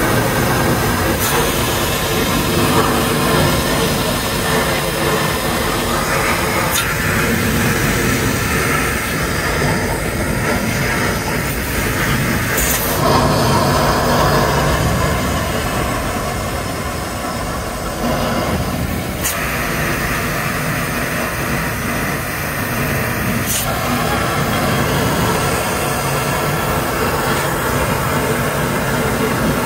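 High-pressure washer running steadily and spraying water, a dense hiss with a motor drone under it that shifts abruptly in tone every five or six seconds.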